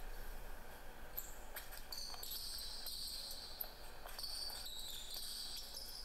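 Basketball dribbled on a hardwood gym floor, several bounces, with high-pitched sneaker squeaks on the floor from about two seconds in.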